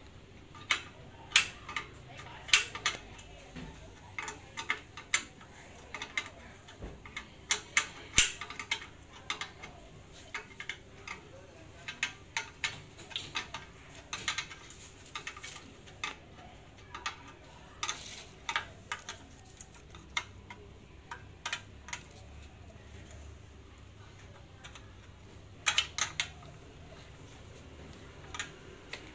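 A spanner and bolts clinking and tapping against steel as a hydraulic pump unit is bolted onto a forklift mast frame: irregular sharp metallic clicks, with a few louder clinks about a second, two seconds and eight seconds in, and a quick cluster near the end.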